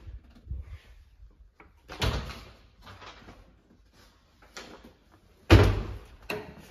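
A few sudden thumps and knocks in a small room with a hard floor. There is a strong one about two seconds in and the loudest near the end, followed quickly by another.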